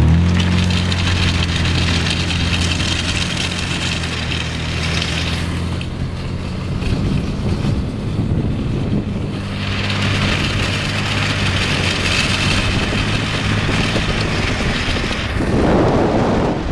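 Van engine running steadily under load, its even hum rising in at the start, with a rough hissing, scraping noise that comes and goes twice and a louder burst near the end; the van is driving on a shredded rear tyre whose wheel will not turn.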